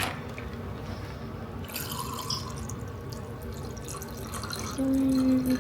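Water trickling and dripping as it is filled into a toy's small plastic container up to the fill line. A short steady hum sounds near the end.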